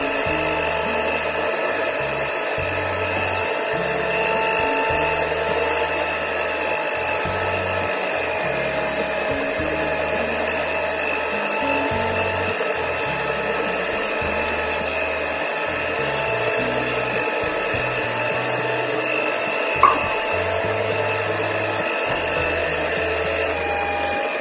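Stand mixer's motor running steadily on its lowest speed, whining as its dough hook kneads stiff bread dough in the bowl. One short click about 20 seconds in.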